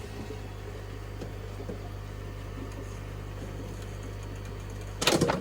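Aquarium pump humming steadily at a low pitch, then a loud clunk of handling near the end as it is switched off and the hum stops.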